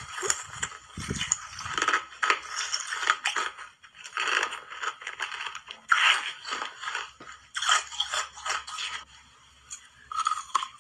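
Close-miked crunching of hard ice being bitten and chewed, in repeated bursts of crisp cracks with short pauses between them. The crunching drops away for about a second near the end.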